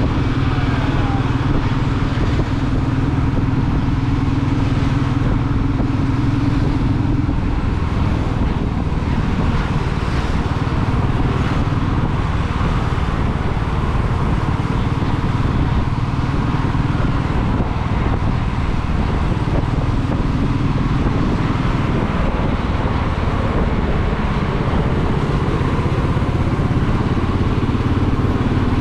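Royal Enfield Meteor 350's single-cylinder engine running steadily while cruising. Its note changes about seven seconds in and again near the end.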